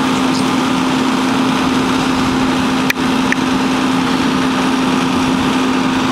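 Fire engine's diesel engine running steadily with a constant low hum. A sharp click about three seconds in, and a fainter one just after.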